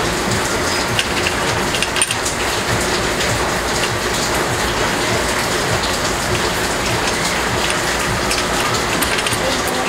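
Steady rain falling on a surface, a dense even patter with scattered sharper drip-like ticks; a slightly louder click about two seconds in.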